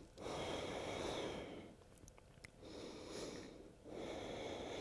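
A woman breathing close to the microphone: three long breaths of about a second each, as she recovers from holding a yoga pose.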